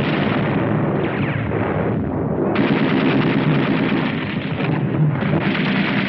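Sustained battle noise of rapid gunfire and shell explosions, dense and continuous, with the muffled top of an old film soundtrack.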